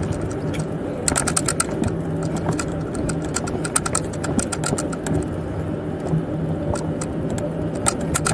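Bicycle being ridden: irregular ticks and rattles from the bike over a steady low hum.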